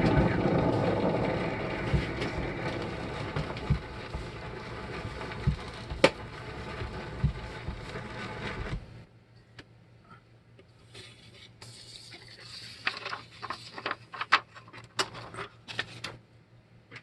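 Recorded roar of a Saturn V rocket launch played from a vinyl record, with a few crackles, fading and then cutting off suddenly about nine seconds in. After that, faint scrapes and a quick run of clicks.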